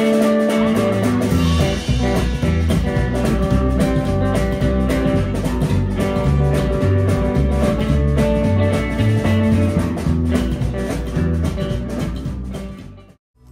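Music with guitar and a steady, rhythmic bass beat; it fades out near the end.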